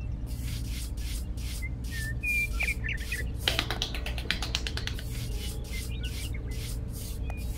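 Small metal trowel scraping and smoothing damp sand in repeated short strokes, about three a second, grittiest about halfway through.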